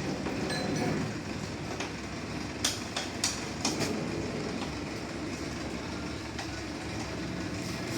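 Steady machinery running, a dense mechanical rumble, with four or five sharp clanks in quick succession about a third of the way in.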